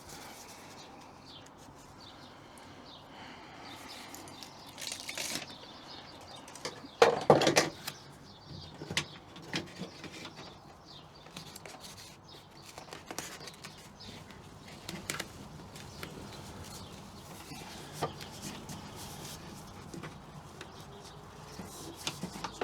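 Rustling and crinkling of a sound-deadening sheet being handled and pressed into place, with scattered light knocks and taps; the loudest rustle comes about seven seconds in.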